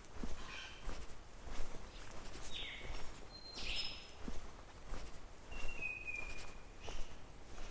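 Footsteps of a hiker walking on a dirt forest track, a steady step about every three quarters of a second, with several bird calls over them; the last is a level whistle about six seconds in.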